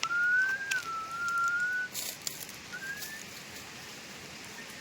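A person whistling: one long, slightly wavering note for about two seconds, then a short rising note.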